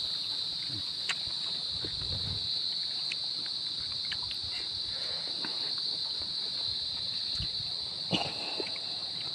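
Insects droning steadily at a high pitch, an unbroken outdoor insect chorus, with a few faint small clicks and low murmurs beneath it.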